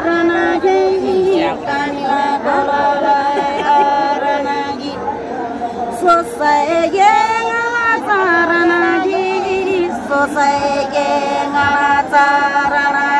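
Women's voices singing a Nepali folk song unaccompanied, in long held phrases that rise and fall.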